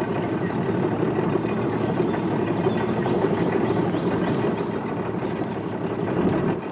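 Boat motor running steadily while under way, with a slight drop in level at the very end.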